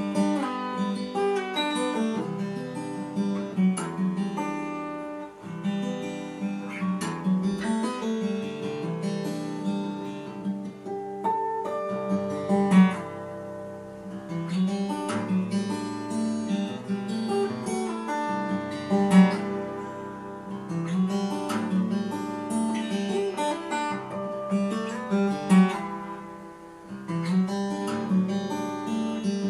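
Steel-string acoustic guitar (a Fender dreadnought) played solo, plucked notes and chords ringing in a steady flow with a few harder accented strikes.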